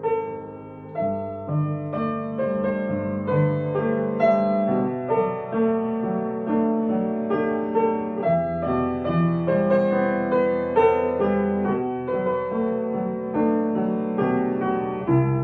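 Gentle piano music, a slow melody of struck notes over sustained lower chords.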